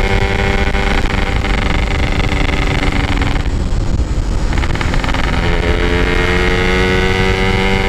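Yamaha RX-King's two-stroke single-cylinder engine running under way through its stock-style packed exhaust. The engine eases off briefly about halfway through, then its pitch climbs slowly as it picks up speed again.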